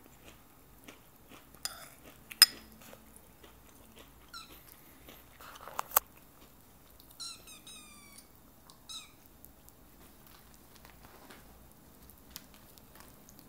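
Tabby kitten mewing for milk: one short high mew about four seconds in, then a quick run of four or five short, high, falling mews a few seconds later and one more just after. Two sharp clicks stand out, the loudest about two and a half seconds in and another about six seconds in.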